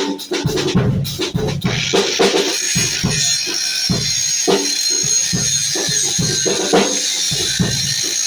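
Background music with a steady drum beat. From about two seconds in, a steady high-pitched whine runs underneath it.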